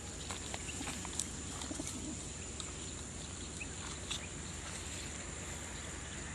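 A crate full of racing pigeons cooing and shuffling, with scattered light clicks and taps.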